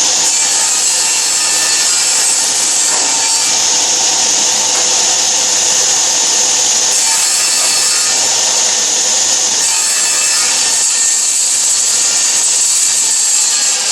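Old Grizzly table saw running and cutting wood on its first test cut: a steady motor hum under a loud, even hiss of the blade in the board.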